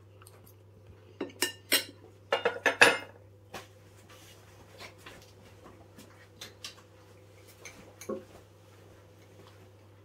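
Metal cutlery clinking on a ceramic plate as the knife and fork are set down: a quick run of sharp clinks in the first few seconds, then faint scattered clicks and knocks over a steady low hum.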